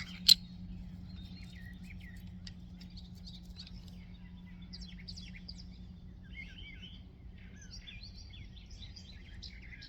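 Birds chirping faintly in the background, many short calls scattered throughout, over a low steady hum, with one sharp click just after the start.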